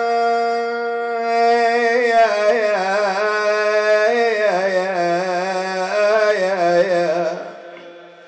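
A man's solo voice chanting a melismatic Shia mourning elegy (nai) unaccompanied, holding long notes and bending them in ornamented turns. The phrase fades away near the end.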